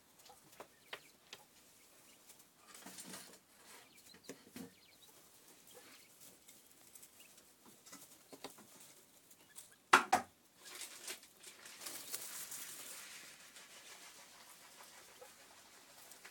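Japanese laying quails moving and pecking about in straw and wood shavings: faint rustling with scattered small clicks. A single sharp knock about ten seconds in is the loudest sound.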